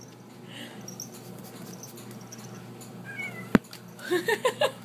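Domestic cat giving a short chirp about three seconds in, followed by a sharp click, then a run of short cries near the end.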